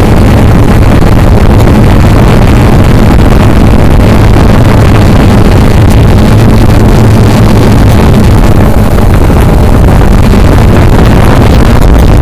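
Cheerson CX-20 quadcopter's motors and propellers heard in flight from the camera it carries: a loud, steady, low hum with a rushing noise over it.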